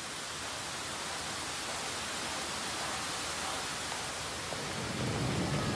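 A steady, even hiss that grows slightly louder, with a low rumble coming in near the end.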